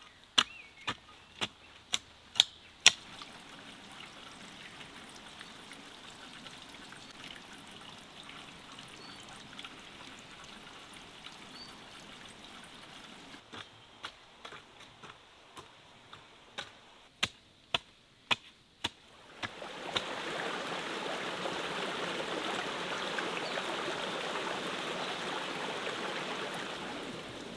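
A garden hoe striking the soil between potato rows: sharp chops about twice a second, in a run at the start and another in the middle. From about twenty seconds in, a steady trickle of running water takes over.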